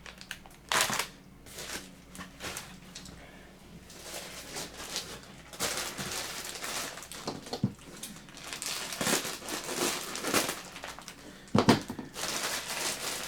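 Plastic packaging crinkling and rustling as it is handled and opened, with scattered small clicks and one louder knock near the end.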